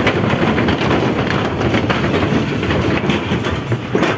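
Inside a shared Tata Sumo jeep driving on a rough mountain road: a steady rumble of engine and road noise with constant fast rattling and clattering.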